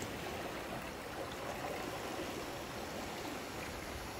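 Steady wash and hiss of sea water around a snorkeller's camera.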